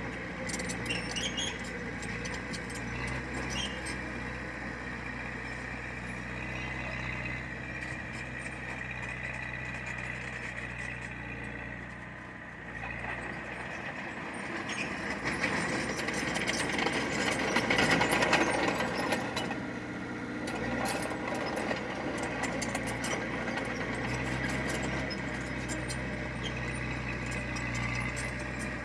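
Diesel engine of heavy earthmoving machinery running steadily, with a high squeal and scattered metallic clanks. It grows louder for a few seconds past the middle, then settles back.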